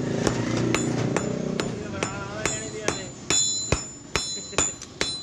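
Hand hammer striking steel on an anvil in a steady run of blows, about two to three a second, with some strikes leaving a short metallic ring. This is the hand-forging of an iron spring into an axe head.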